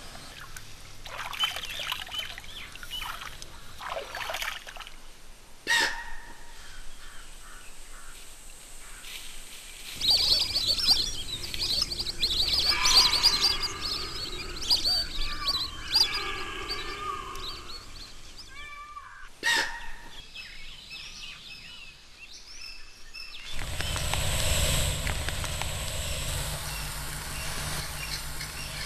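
Wild birds chirping and calling over forest ambience, in several spliced stretches that change abruptly a few times; the calls are busiest in the middle.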